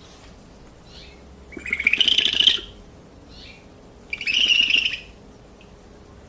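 Great horned owl giving two loud, raspy calls just under a second each, with faint short squeaks before and between them.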